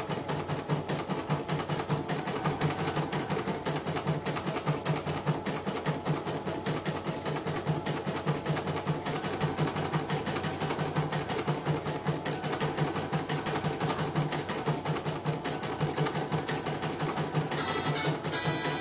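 CNY portable computerized embroidery machine stitching, its needle bar and hoop drive clattering in a rapid, even rhythm as it runs a test embroidery after repair, the thread feeding without catching. A short higher-pitched tone joins near the end.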